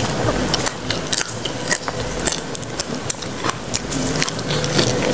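Biting and chewing raw leafy greens coated in rujak sambal, with many sharp, irregular crunching clicks.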